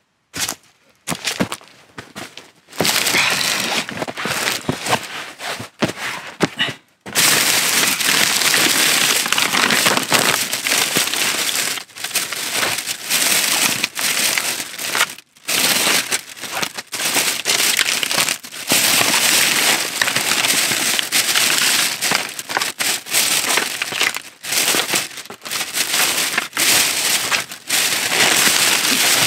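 Thin plastic shopping bag and plastic snack packets rustling and crinkling close up as packs are pulled out of the bag and set down. Loud and stop-start, picking up a few seconds in, with a couple of brief pauses.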